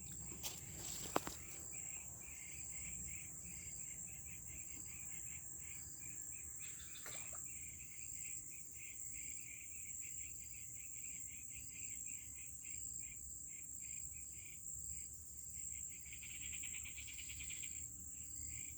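Insects calling, crickets among them: a steady high-pitched drone with rapid repeating chirps beneath it, thickening into a denser buzz near the end. Two faint clicks about a second in.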